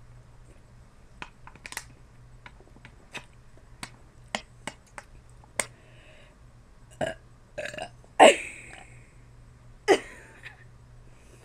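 A girl burping out loud twice, about eight and ten seconds in, the first the longer and louder. Small sharp clicks and taps come before.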